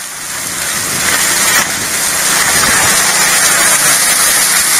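Water rushing and splashing down a highbanker sluice box, a loud steady rush that grows louder about one and a half seconds in.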